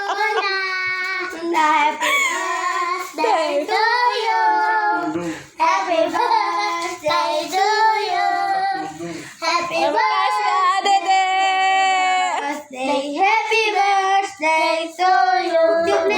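A child singing a birthday song.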